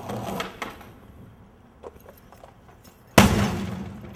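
Skateboard wheels rolling on a concrete sidewalk with a few light clicks, then a single loud, sharp impact about three seconds in, the board striking the ground, which rings out and fades over about a second.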